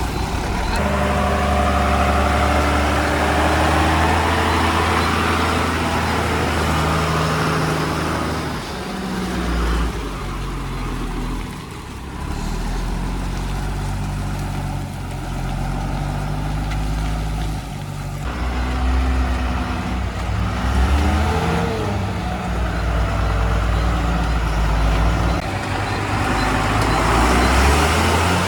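Heavy diesel engines of a JCB 3DX backhoe loader and a Tata truck running hard under load while the mired truck is being pulled out of mud. Their engine speed rises and falls several times, with a brief easing of the noise about ten seconds in.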